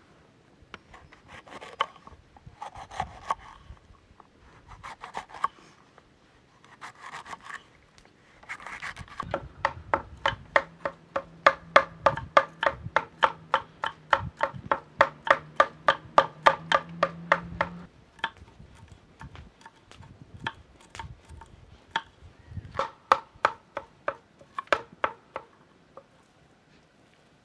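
Kitchen knife cutting a green bell pepper on a wooden cutting board: a few slower slicing strokes, then rapid, even chopping at about five strokes a second, then slower, irregular chops.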